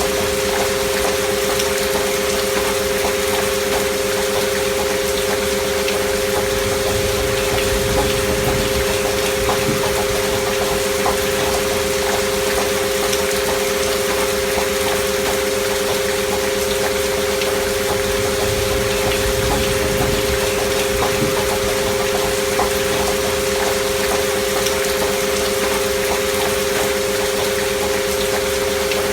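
Steady recorded rain mixed with two steady pure tones held unchanging underneath: a healing-frequency track of 528 Hz and 639 Hz tones with an alpha-wave binaural beat.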